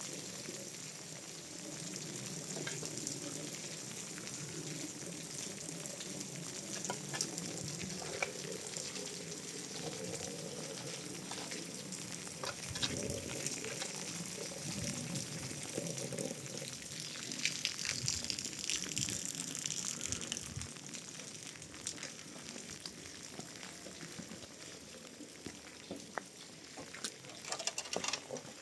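Food sizzling as it fries in a pan, a steady hiss with scattered small clicks and pops.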